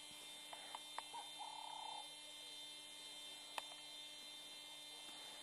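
Faint steady electrical hum with a few small clicks, and a short buzzy note about a second in.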